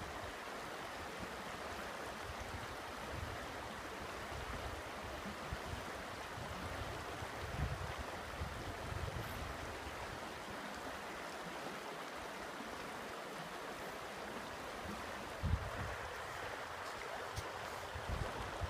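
Steady rush of a shallow mountain creek running over rocks and riffles, with a couple of brief low rumbles partway through.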